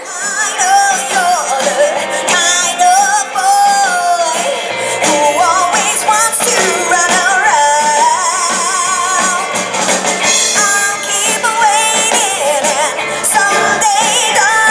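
Live band playing a rock-and-roll number: a woman singing lead over electric guitar and band.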